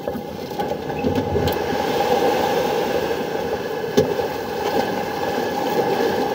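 Small engine of an outrigger fishing boat running steadily, with a short knock about four seconds in.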